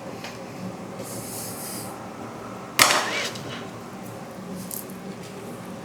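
A single sharp knock about three seconds in, with a brief metallic ringing after it, over faint steady room noise. It fits a hand tool being set down on the work surface.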